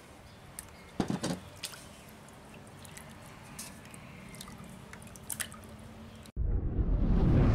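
Water dripping and splashing, with small sharp splashes, as live gobies are lifted by hand out of a pot of water. About six seconds in this cuts off abruptly and a loud, low rushing whoosh of a logo intro sound effect swells in, the loudest sound here.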